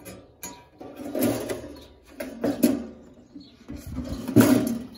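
A thick magazine shoved into a stainless-steel wall mailbox slot, paper scraping and the metal flap rattling in several pushes, the last push near the end the loudest.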